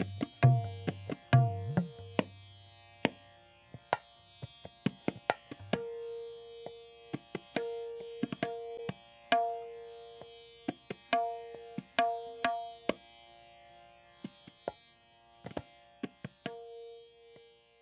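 Instrumental background music: sharp drum strokes over held pitched notes, with low drum strokes bending upward in pitch in the first couple of seconds. The music thins out near the end.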